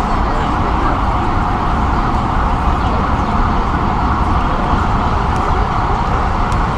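Steady city traffic noise: a continuous wash of cars and trucks on the surrounding streets, with no single event standing out.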